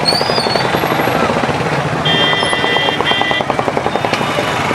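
Helicopter rotor beating in rapid, even pulses. A high steady whine joins it about two seconds in and lasts about a second and a half.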